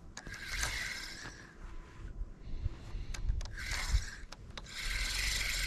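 Spinning rod and reel being fished: hissing whirs of the reel and line, and a few sharp clicks around the middle.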